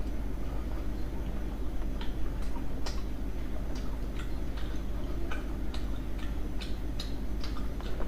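Close-miked chewing: irregular wet mouth clicks and smacks, a few every second, over a steady low hum.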